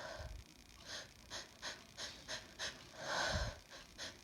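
A woman's quick, short sniffs through the nose, about six in a row, then a longer gasping in-breath about three seconds in: the build-up of a sneeze fit, her nose irritated by sniffed chhinkni sneezing powder.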